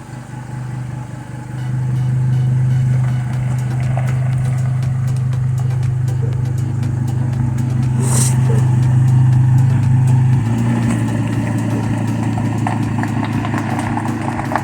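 A 2010 Chevy Colorado pickup's engine running steadily through its exhaust. It gets louder a couple of seconds in and its note drops slightly about ten seconds in, with a brief hiss about eight seconds in.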